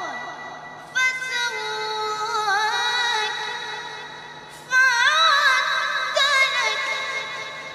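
A boy chanting Quran recitation: two long melodic phrases, the first beginning about a second in and the second near five seconds, each built on held notes with fine wavering ornaments that slowly fade.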